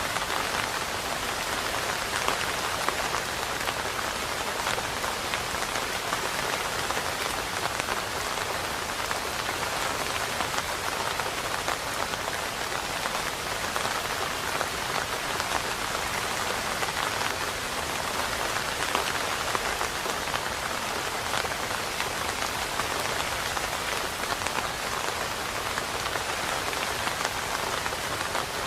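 Steady rain falling on a surface: a dense, even patter of drops that does not let up.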